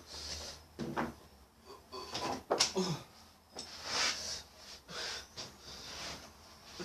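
Irregular household handling noises: scattered knocks and clatters with rustling, over a faint steady low hum.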